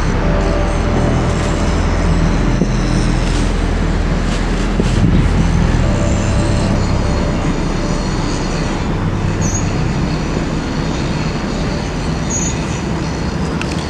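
A loud, steady, low mechanical rumble, as from a large engine running.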